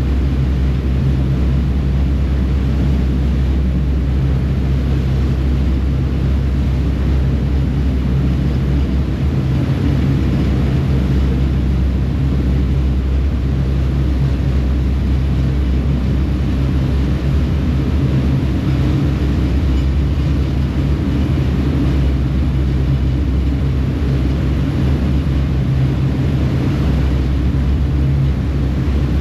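Ferry engines running steadily at cruising speed, a constant low drone, under the rush of water churned up in the wake behind the stern.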